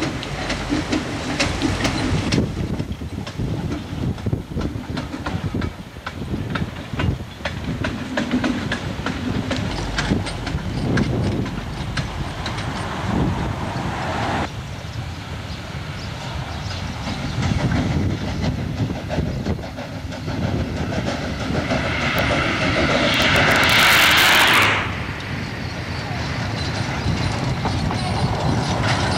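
Narrow-gauge train running, its wheels knocking irregularly over the rail joints. Near the end, a loud hiss lasts about three seconds and cuts off suddenly.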